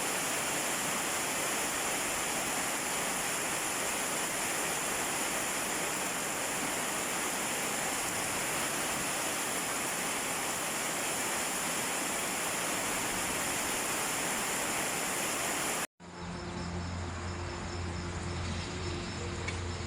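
Steady hiss of heavy rain falling, unbroken for about sixteen seconds, then cut off abruptly. After the cut, a quieter steady low hum with faint insect chirping.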